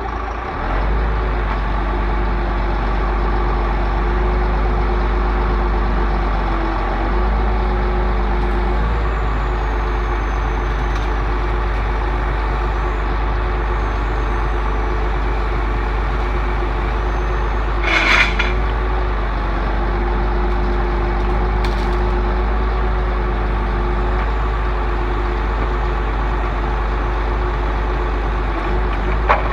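Heavy vehicle engine running steadily, with a short hiss of released air about two-thirds of the way through.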